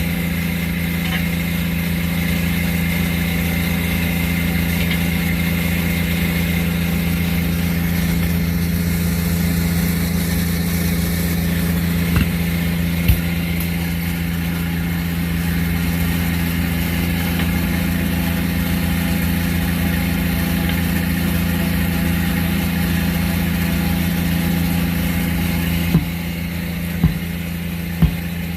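An engine running steadily at a raised speed, its pitch holding even after revving up just before. A few sharp metallic knocks come through it, twice near the middle and several times near the end.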